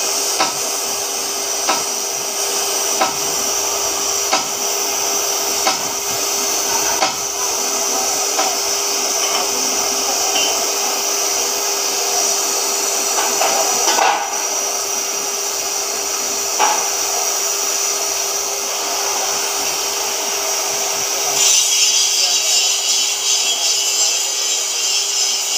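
CNC oxy-fuel cutting torch cutting through thick steel plate: a steady hiss of the cutting jet over a steady hum, with a few sharp ticks in the first half. The hiss grows louder and brighter near the end.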